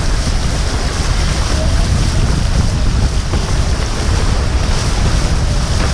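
Wind buffeting the microphone over the steady rush and hiss of water along the hull of a Tornado catamaran sailing fast.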